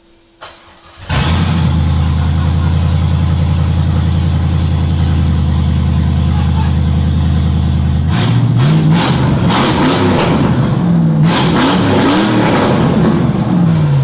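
C5 Corvette's 5.7-litre LS V8 running on open headers, its exhaust dumping straight out with no catalytic converters or pipes. It fires up about a second in and idles loud and steady. From about eight seconds it is revved several times in quick blips, the last one falling back near the end.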